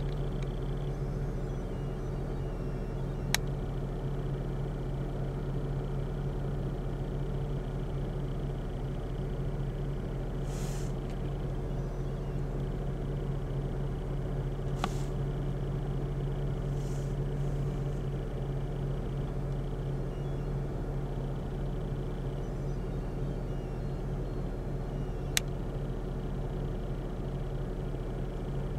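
Steady low mechanical hum that holds throughout, with three sharp clicks and two brief hisses along the way.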